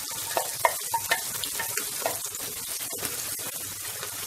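Tomato-onion gravy sizzling in butter in a nonstick frying pan while a wooden spatula stirs it, with several short scrapes of the spatula in the first two seconds.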